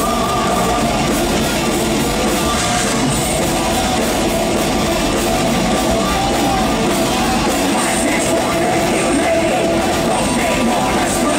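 Symphonic power metal band playing live at full volume, with distorted guitars over drums, sustained and unbroken.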